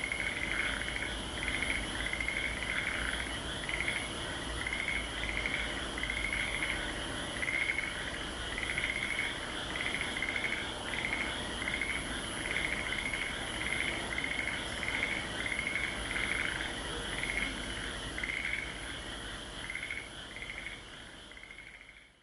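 Frog chorus: many frogs calling in short repeated notes, about two a second, over a steady high insect trill. The sound fades out at the very end.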